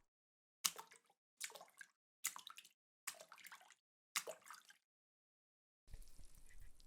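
Five small water splashes in a row, about one every 0.8 seconds, each a quick hit with a short liquid tail. Near the end a faint steady water noise begins.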